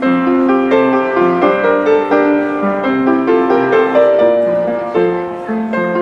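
Piano music: a steady stream of played notes and chords.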